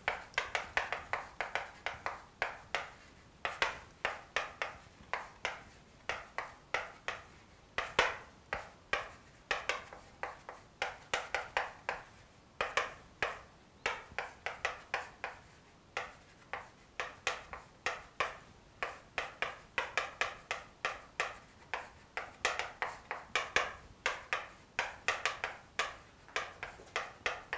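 Chalk writing on a chalkboard: quick runs of sharp taps and short scratches as each stroke is made, broken by short pauses between words.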